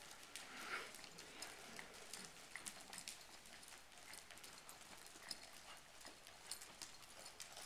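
American Quarter Horse gelding walking on the dirt footing of an indoor arena: faint, irregular hoofbeats with scattered light clicks.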